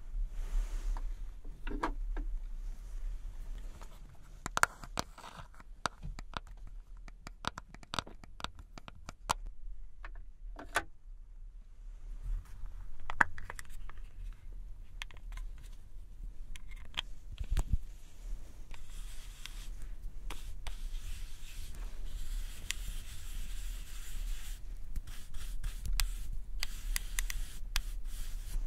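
Close, crisp handling of a red plastic 3CE makeup compact: many small clicks and taps of its plastic case. In the second half a makeup brush swirls and scratches over the compact's powder pan with a steady bristly hiss. A constant low hum runs underneath.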